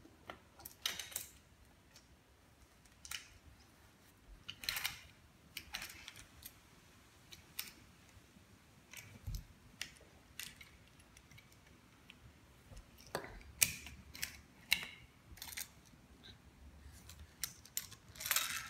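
Scattered light clicks and knocks of small toy train cars being picked up, set down and pushed along a wooden train track, with a soft thud about halfway.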